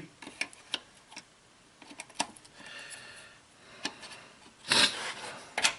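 Small clicks and light rubbing of parts being handled as a replacement ignition coil is worked into a distributor, then a louder breathy rush near the end.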